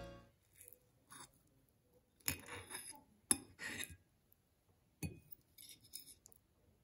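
Metal fork cutting into a soft baked broccoli bake and tapping and scraping against a porcelain plate: a faint series of separate clinks and short scrapes.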